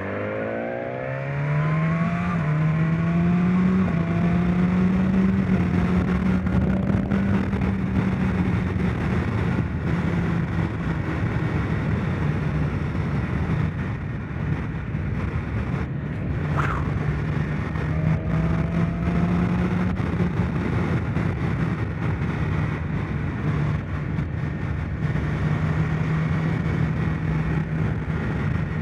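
Sport motorcycle engine pulling away with its pitch rising through a gear change in the first few seconds, then holding a steady cruise. Wind rushes over the microphone throughout.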